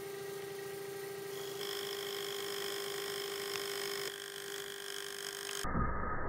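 Metal lathe turning a steel gear blank with a carbide insert, a steady high whine with a faint tick about three and a half seconds in. The whine cuts off about five and a half seconds in, giving way to a muffled low rumble.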